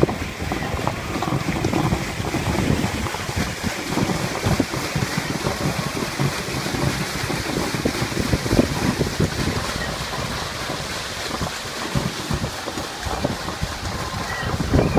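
Steamboat paddlewheel churning and splashing through river water, with steady gusty wind buffeting the microphone.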